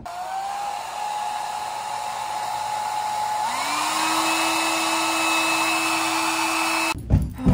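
Handheld hair dryer blowing: a steady rush of air with a motor whine. The whine glides up to a higher pitch about three and a half seconds in, and the dryer cuts off abruptly near the end.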